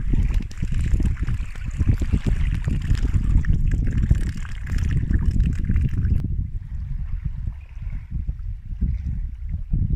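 Small waves splashing and lapping at a muddy lake shore, with wind buffeting the microphone in a heavy, uneven low rumble. About six seconds in, the splashing hiss drops away abruptly, leaving the rumble of wind and choppy water.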